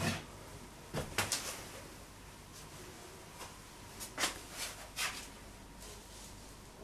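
A handful of short, sharp knocks and clicks in irregular clusters over a low steady hum.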